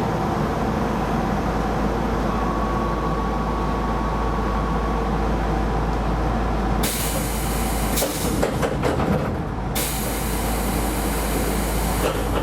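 Keisei Line rapid train running, heard from on board: a steady rumble of wheels and running gear with a faint steady tone. From about seven seconds in, a loud hiss with clicks and knocks joins it, breaks off briefly and comes back near the end.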